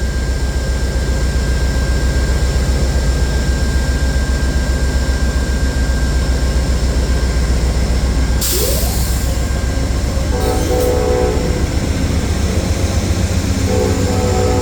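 Amtrak passenger train's diesel locomotive pulling out, its engine running with a heavy low rumble. A short hiss about eight and a half seconds in, then the horn sounds briefly about ten seconds in and again near the end.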